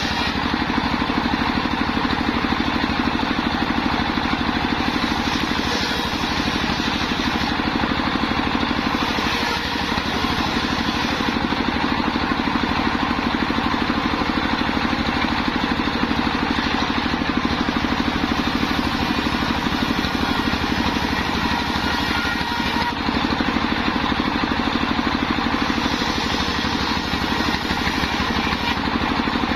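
Engine-driven home-built circular saw running steadily with a continuous drone while sawing wadang timber.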